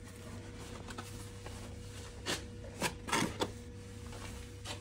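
Cardboard boxes being handled on metal shelving: a few short scrapes and knocks a little past halfway, over a steady low hum.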